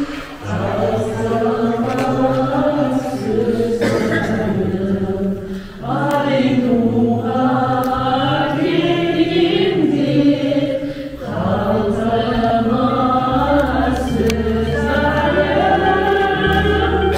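A group of voices singing together in long held phrases, with short breaks about every five and a half seconds and a low steady hum joining in past the halfway point.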